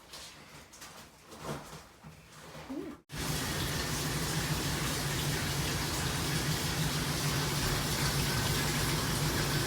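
A new LG washing machine filling with water, starting about three seconds in: a steady rush of water with a low steady hum underneath. Faint handling noise comes before it.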